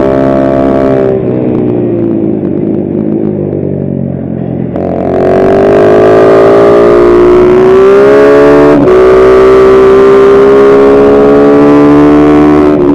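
Kayo MR150 pit bike's 150 cc single-cylinder four-stroke engine at speed on track. About a second in the throttle closes and the engine note falls as the bike slows for a corner; near five seconds the throttle opens and the revs climb, with an upshift (a sudden drop in pitch) about nine seconds in, then climbing again.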